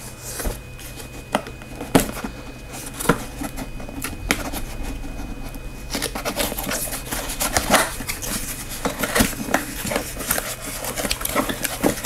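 Clear packing tape being peeled off a cardboard box, then the cardboard flaps being pulled open and handled, with irregular crackles, clicks and scrapes throughout.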